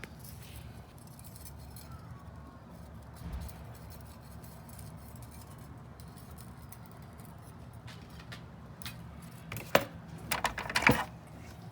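Small metal engine parts being handled, giving a few scattered light clinks and then a quick cluster of sharper metallic clinks near the end, over a low steady hum.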